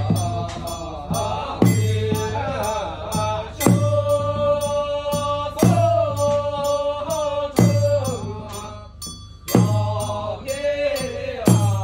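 Taoist priests chanting a funeral rite in a drawn-out sung melody. A struck percussion beat falls about every two seconds, over a quick, steady jingling of a small bell.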